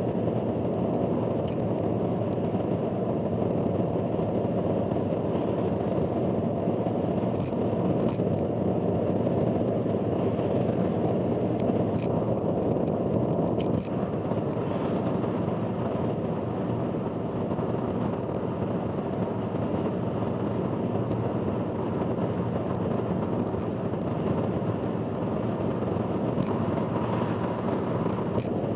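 Steady car road and engine noise heard from inside a moving car on an expressway, with scattered light ticks throughout.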